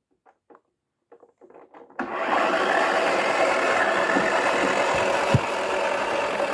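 A few faint handling clicks, then about two seconds in a toy washing machine's small electric motor switches on and runs steadily, its plastic drum whirring round with a rugby ball inside. One sharp knock about five seconds in.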